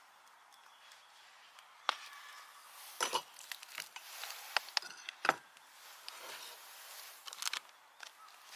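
Irregular sharp knocks and clicks of hard objects being handled, about a dozen spread over several seconds, over a faint steady hiss.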